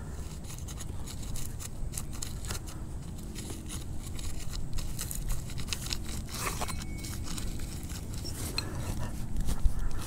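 Hand digging tool scraping and crunching into the ground with irregular scuffs and clicks, digging out a metal-detector target a few inches down.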